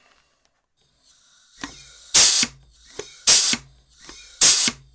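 Chicago Pneumatic CP351 pneumatic rivet squeezer being cycled three times, about a second apart: each stroke comes with a click and a loud, short blast of exhaust air, with a steady hiss of compressed air in between.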